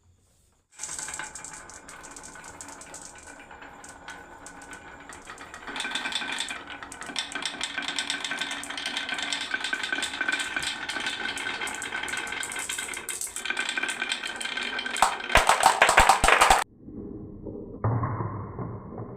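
Marbles rolling and clattering down a marble run track: a continuous rapid rattle of small clicks that grows louder partway through, with a loud burst of clattering about fifteen seconds in that stops abruptly. Music starts near the end.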